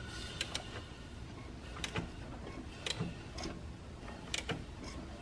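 Faint, irregular metallic clicks and ticks, one or two a second, while the BMW S54 engine is turned over by hand from the crankshaft pulley.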